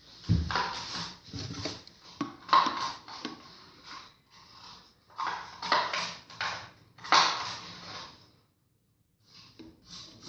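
Utensil stirring a sticky slime mixture of glue and liquid detergent in a cup or bowl: wet squelching and scraping against the sides in several bursts, then a short quiet pause near the end.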